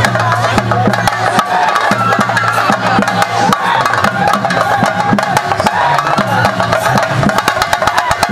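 Fast, dense chenda drumming for a theyyam, sharp stick strokes, under a crowd shouting and cheering.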